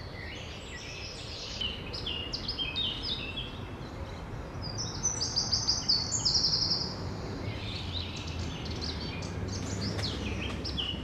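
Small songbirds singing in the tree canopy: quick runs of short, high notes, loudest about five to seven seconds in, over a steady low rumble.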